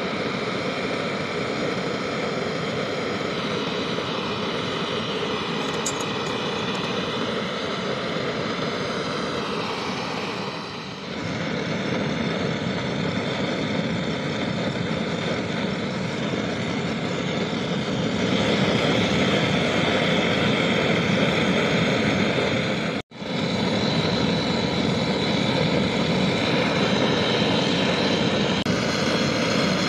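Handheld gas torch flame burning with a steady rushing sound while it heats small steel parts red-hot. It gets somewhat louder a bit past halfway and breaks off for a moment about three-quarters through.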